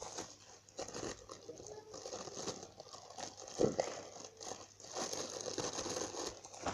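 Plastic packaging crinkling and rustling as it is handled, with irregular crackles and one sharper crunch a little past the middle.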